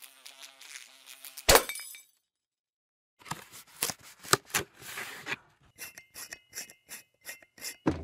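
Logo-intro sound effects. A faint buzz ends in one sharp, loud hit. After about a second of silence comes a string of clicks and ticks, which settles near the end into an even ticking of about four a second over a faint steady tone.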